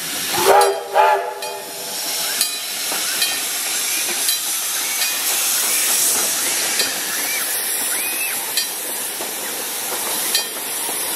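Small steam locomotive passing close by: two short whistle toots about half a second and a second in, then a steady loud hiss of escaping steam with a faint regular beat about once a second as it rolls slowly past.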